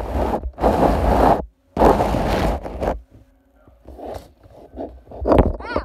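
Scraping and rubbing right against a phone's microphone as it is handled close to bedding and wood, in two long loud bursts in the first three seconds. After that it goes quieter, with a few small knocks and a short rising squeak near the end.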